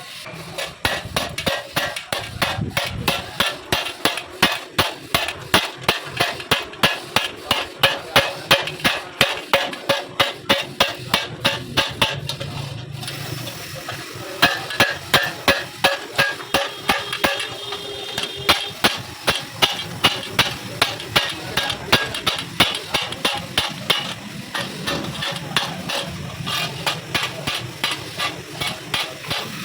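Metal being hammered in quick, steady blows, about three or four a second, with a short pause about halfway through.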